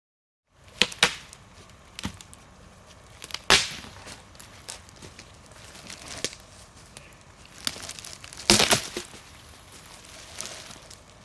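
Wooden branches cracking and snapping: irregular sharp cracks over a faint crackling, with the loudest cluster of snaps about three-quarters of the way through. It starts after a moment of silence.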